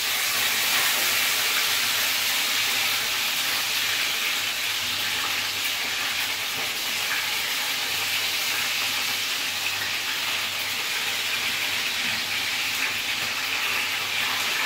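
Chicken pieces frying in hot oil in a pan: a steady sizzling hiss with faint crackles.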